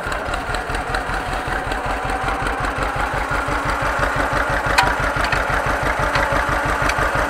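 John Deere 530's two-cylinder engine running on its first start after an overhaul, with a steady, even beat of firing pulses that grows slightly louder toward the end.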